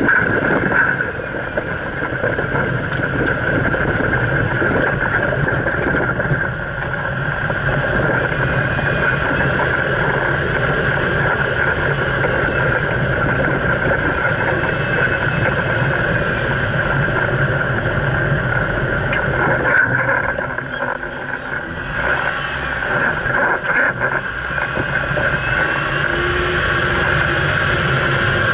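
Jeep Wrangler JKU Rubicon driving over desert sand, heard from beneath the vehicle by its front suspension: a steady rushing noise of tyres, wind and drivetrain. The noise dips briefly about twenty seconds in, then carries on.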